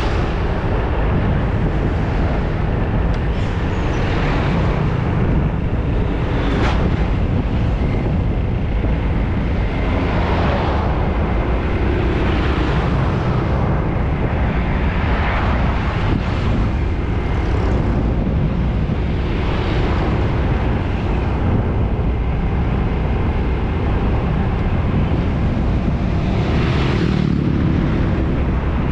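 Road traffic passing close by, one vehicle after another every few seconds, over a steady low rumble of wind on the microphone.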